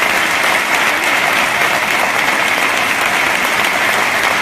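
A large audience applauding, dense and steady clapping throughout.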